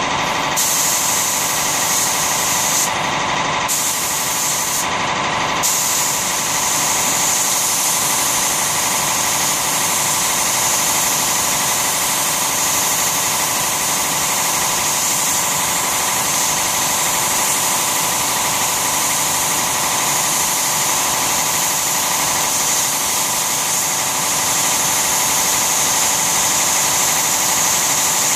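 Compressed-air siphon-feed spray gun hissing as it sprays a mahogany shading finish, over the steady running hum of an air compressor. The spray cuts out briefly a couple of times in the first few seconds as the trigger is released, then runs in one long unbroken pass.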